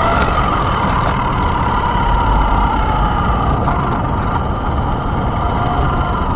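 Electric RC monster truck driving on pavement: its motor and gears whine with a pitch that wavers and dips as the speed changes, over a steady rumble of tyres on the concrete, heard from the camera mounted on the truck.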